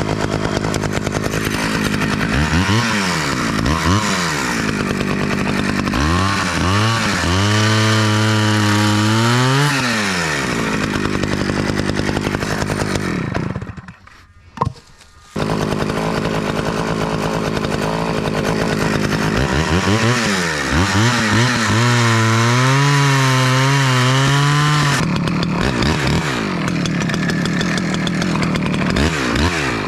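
Small Stihl two-stroke chainsaw idling, blipped twice, then held at full throttle while cutting ash wood, its pitch wavering under load. The sound drops away briefly midway with one sharp knock, then the saw revs up and cuts again before falling back to idle.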